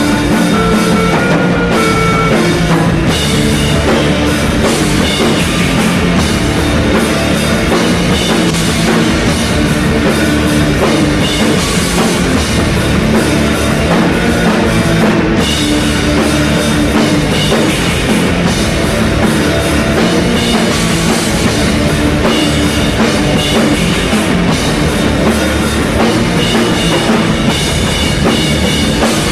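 A post-rock band playing live, loud and continuous, with a full drum kit and electric guitars.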